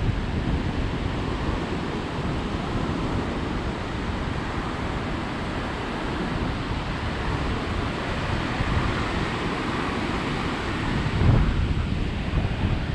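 Ocean surf breaking and washing up a sandy beach, with wind buffeting the microphone. The wash swells about two-thirds of the way through, and a gust hits the microphone hardest shortly after.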